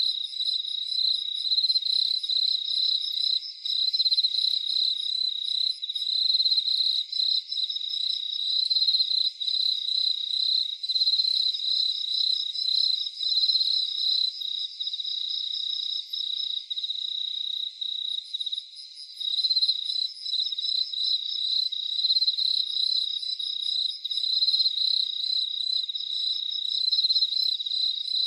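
Crickets chirping in a dense night chorus: a high, steady trill with a second pulsing layer just above it, briefly thinning about two-thirds of the way through.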